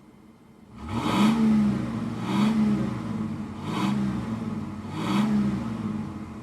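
Car engine revved four times, each rev rising and falling in pitch, then settling toward idle near the end.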